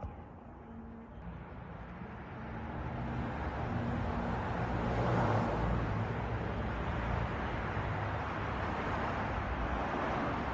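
A steady rushing noise with a low hum underneath, growing louder a couple of seconds in and then holding.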